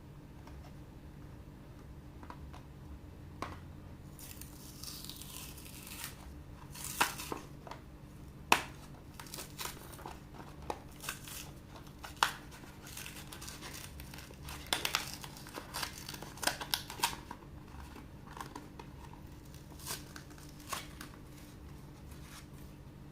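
Toy packaging being torn open and handled: a longer tearing rustle a few seconds in, then a run of sharp crinkles and clicks.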